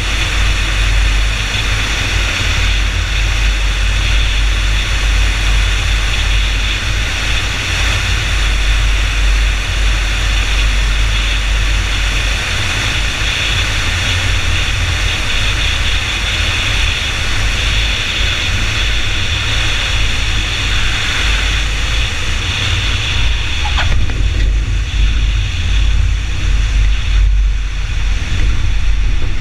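Cessna 172 on final approach heard from a camera mounted outside under the wing: heavy wind rush and rumble on the microphone over the engine and propeller, steady throughout. Near the end the wheels are on the runway and the plane is rolling.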